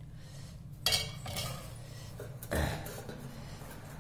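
Steel ladle stirring and scooping chicken curry in a metal pot, clanking against the pot twice, about a second in and again about two and a half seconds in, with a little ringing after each knock.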